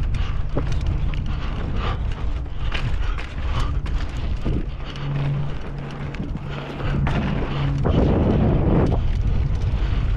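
Mountain bike riding on dirt: wind rushing over the microphone and tyres rumbling over the ground, with frequent knocks and rattles from the bike. A steady low hum runs through the middle, and a louder rough rush of tyre and wind noise comes near the end.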